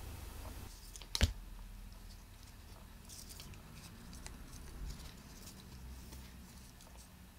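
A single sharp click about a second in, then faint scattered crinkling and ticking of a folded paper strip cat toy being waved and handled.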